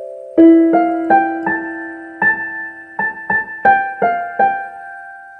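Solo piano music: a slow melody of about ten single struck notes, each left ringing, the last one fading out at the end.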